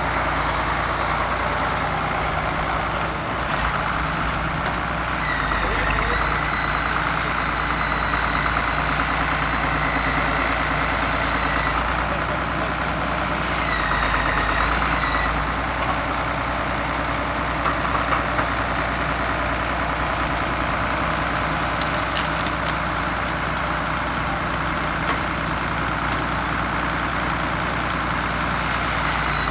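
Farm tractor engine running steadily while the tractor works a log with its front loader. A high, steady whine comes in about five seconds in, holds for several seconds, and returns briefly a little later.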